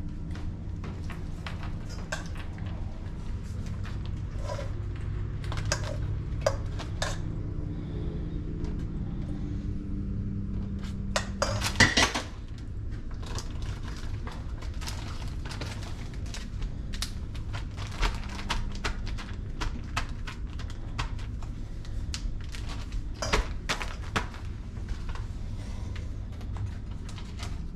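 A metal spoon clinking and scraping against a pan as cooked ground beef is portioned out, many irregular clinks throughout, with one loud clatter about twelve seconds in. A steady low hum runs underneath and stops at that clatter.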